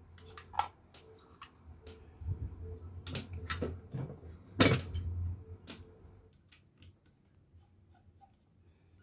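Metal parts of a cordless nailer's piston-and-cylinder assembly clicking and knocking as they are handled, a string of sharp clinks with the loudest knock a little past halfway, then only a few light taps.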